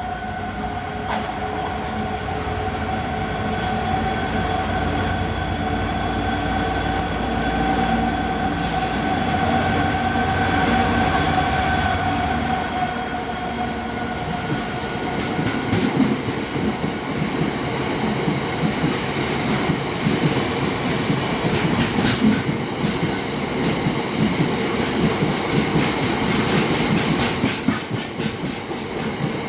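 A train at a station platform: a steady mechanical whine with low rumble for the first half, then the clatter of wheels over rail joints as it moves through, with occasional sharp clicks.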